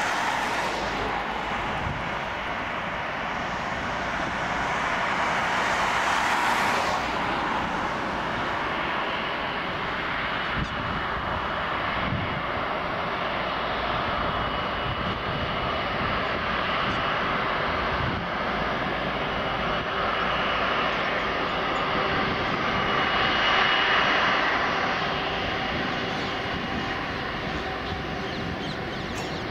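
Airbus A330-300 airliner's twin turbofan engines running at high thrust for takeoff: a steady jet rush with faint high whining tones, swelling in loudness twice.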